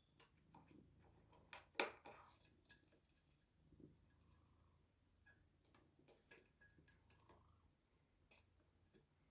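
Faint, scattered light clicks and taps, the loudest about two seconds in, with a few more clustered around six to seven seconds.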